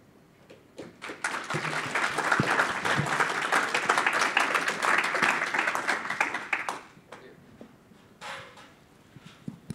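Audience applauding: many hands clapping together, starting about a second in, then dying away about seven seconds in.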